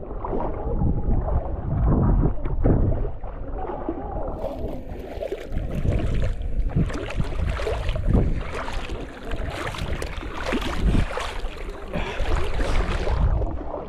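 Seawater sloshing and splashing around a camera held at the water's surface. It is muffled for the first few seconds, then turns into a dense crackling, fizzing spray from about four seconds in until near the end.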